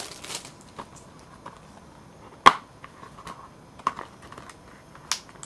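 Cellophane shrink-wrap crinkling for a moment at the start, then scattered sharp clicks and taps of a plastic DVD case being handled, the loudest about two and a half seconds in.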